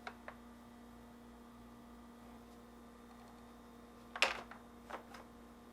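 Light plastic clicks, then a sharper knock about four seconds in and two lighter taps: the refrigerator's plastic center mullion being slid down onto its hinge retainers and seated. A steady low hum runs underneath.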